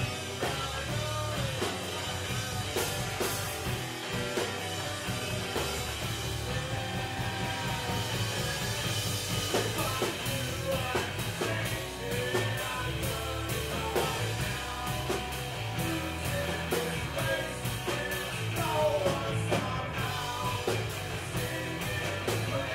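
Indie rock band playing live: a singer's voice over electric guitars and a drum kit.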